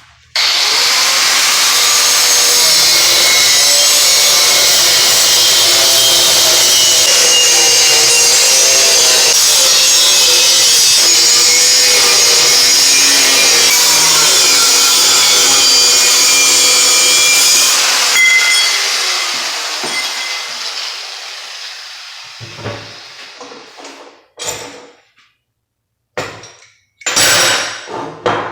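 Electric angle grinder cutting steel: runs loud and steady for about 18 seconds, then the disc winds down over several seconds after release, followed by a few short bursts near the end.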